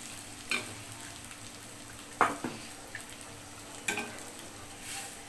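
Metal spatula knocking and scraping against a metal karahi while stirring a watery potato and pointed gourd curry, four sharp knocks, the loudest a little after two seconds in, over a steady hiss from the cooking pot and burner. Water has just gone in for the gravy.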